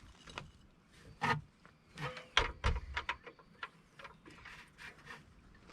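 Irregular metal clicks and knocks as a bolt is worked toward its mounting hole in a car's rear suspension, with a burst of clinks in the middle and the loudest knock about two and a half seconds in.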